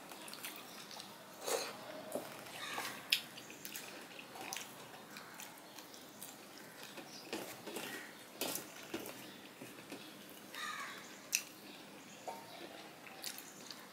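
Soft wet eating sounds of rice and curry eaten by hand: chewing, lip smacks and squishes of fingers working the wet rice, heard as scattered short clicks.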